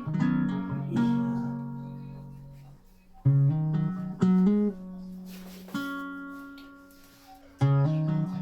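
Background music: a slow plucked-string melody, each note or chord starting sharply and then ringing out and fading.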